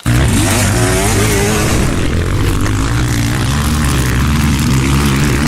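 Motocross dirt bike engine sound effect, revving, its pitch gliding up and down over a steady rasping hiss; it starts abruptly at full loudness.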